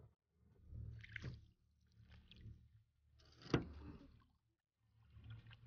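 Canoe paddling: four faint paddle strokes and splashes against an aluminum canoe's hull, spaced a little more than a second apart, over a low rumble. A sharp knock a little past halfway is the loudest sound.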